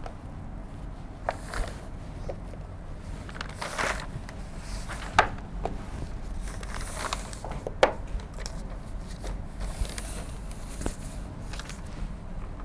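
A few sharp clicks and knocks and some paper rustling as a paper worksheet is pressed onto a whiteboard and held with magnets, over a steady low hum.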